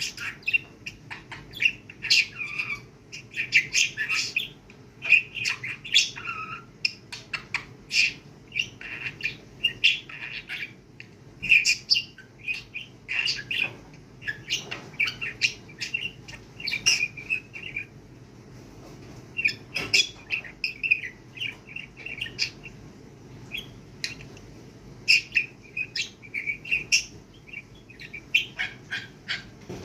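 Pet budgerigar chattering: quick chirps and warbling phrases in bursts, with short pauses between them.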